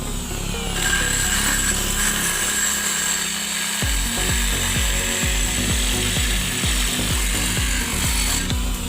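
A power drill running with a steady high whine, over background music that takes up a regular bass beat about four seconds in.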